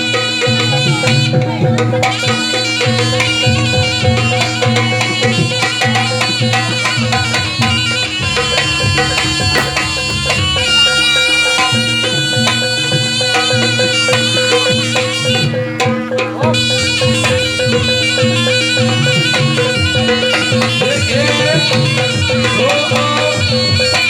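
Loud traditional Javanese barongan accompaniment: a reedy wind instrument plays a sustained, nasal melody over a steady drone, with drums and percussion underneath.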